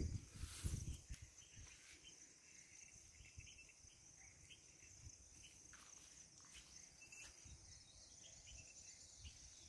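Quiet outdoor ambience dominated by a faint, steady, high-pitched insect buzz, with a few short faint chirps and a brief low rumble at the start.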